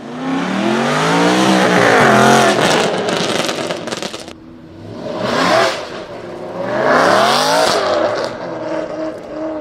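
Aston Martin Vantage AMR Pro race car driving past at speed, its engine note rising and then falling as it goes by. A run of exhaust crackles and pops follows about three seconds in, then the engine note climbs and falls again as it passes once more.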